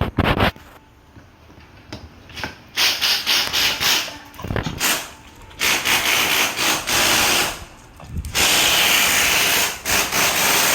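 Power drill running in three bursts of a second or two each, with short pauses between.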